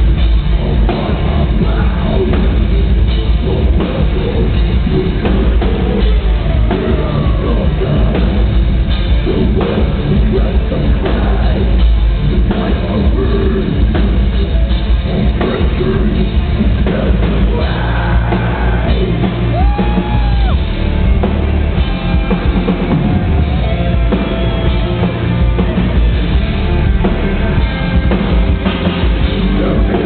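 Metalcore band playing live: loud distorted electric guitars and a pounding drum kit, with vocals, recorded from within the crowd. Around twenty seconds in a single held note bends in pitch above the band.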